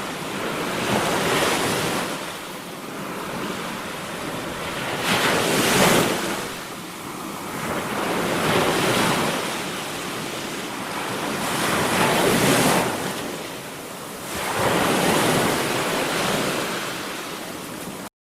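Ocean surf: waves breaking and washing in, swelling and falling back about every three to four seconds. The sound cuts off suddenly near the end.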